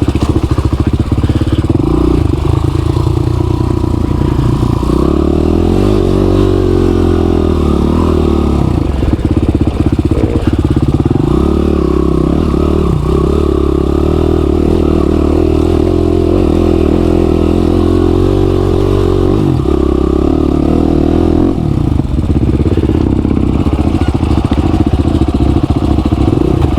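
Motorcycle engine running close by, idling with the revs rising and falling a few times.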